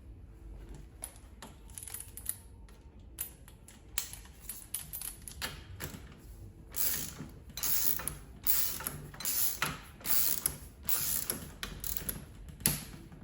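Socket-and-ratchet wrench clicking as a 19 mm nylock nut is tightened onto a wheelchair's rear wheel axle. It goes in short repeated strokes, faint at first and louder and more regular in the second half.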